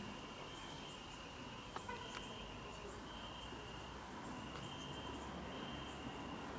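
A cricket trilling: a steady high-pitched trill in stretches of about a second with short gaps between, over a faint background hiss.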